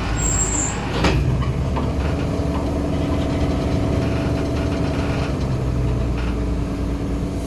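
Heavy diesel engine running steadily with a low hum, and a single clunk about a second in.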